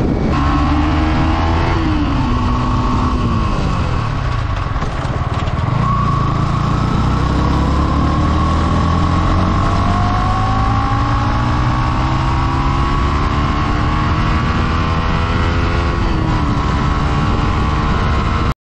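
Sport motorcycle engine at road speed with wind rushing over the camera. Its pitch falls over the first few seconds as the bike slows, then climbs steadily for about ten seconds as it accelerates, and the sound cuts out abruptly for a moment near the end.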